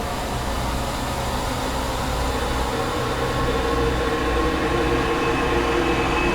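Dark, ghostly ambient drone: a steady low rumble under several held, eerie tones that slowly grow louder toward the end.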